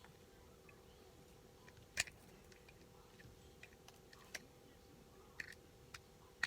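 Near silence broken by a few scattered small clicks and taps, the loudest about two seconds in, over a faint steady hum.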